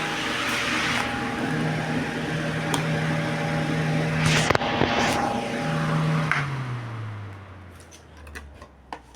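Mondial VT-40-B table fan running with a steady motor hum and rushing air, with a few sharp clicks in the middle. About six seconds in, the motor winds down: its hum slides steadily lower in pitch and fades.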